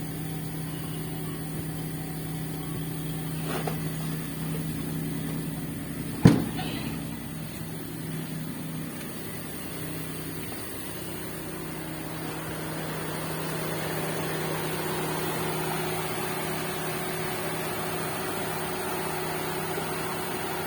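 Car engine idling with a steady low hum. A single sharp knock about six seconds in, and a steady rushing noise that builds from about halfway through.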